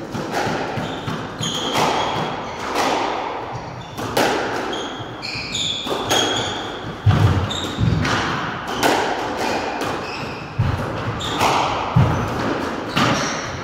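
A squash rally: the ball is struck by rackets and smacks off the court walls in repeated sharp, echoing cracks, about one or two a second. Shoes squeak briefly on the wooden floor, and heavy footfalls thud now and then, loudest about seven seconds in and near the end.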